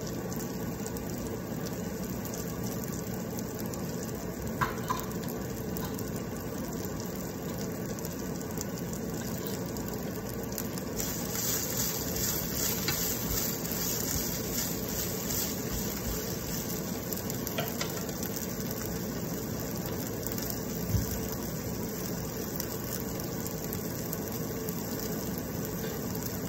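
Broccoli sautéing in a nonstick frying pan: a steady sizzle, louder and hissier for a few seconds partway through while a wooden spatula stirs it. A couple of light clicks come about five seconds in, and a dull knock about two-thirds of the way through.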